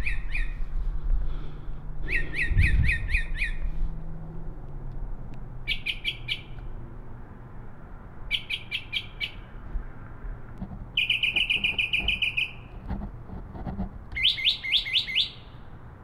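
Northern mockingbird singing at night: six short phrases, each a rapid run of the same note repeated, with pauses of a second or two between and the note type changing from phrase to phrase. A friend of the uploader identifies the opening phrases as mimicry of a dark-eyed junco. This is a male's territorial song.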